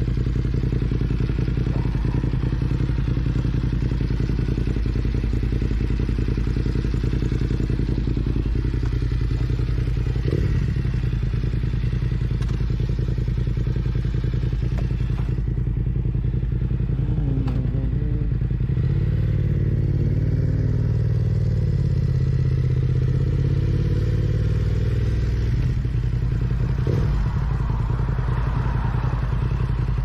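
BMW F900R's parallel-twin engine running while riding, a steady engine note over a constant rush of noise. For several seconds past the middle the revs shift up and down, and a couple of single knocks come through.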